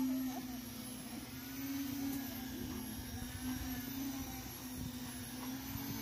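Steady mechanical drone of the concrete pumping machinery running while wet concrete is pumped through the hose onto the slab.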